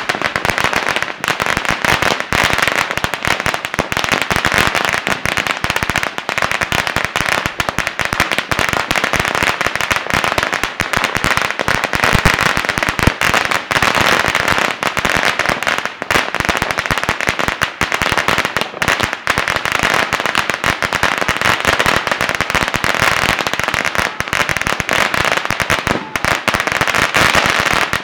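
Firecrackers going off one after another in a dense, unbroken rattle of rapid small bangs.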